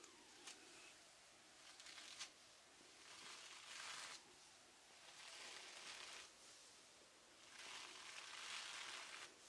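Quiet close-up ASMR handling sounds: a few light clicks, then three soft, hissing rustles of about a second each.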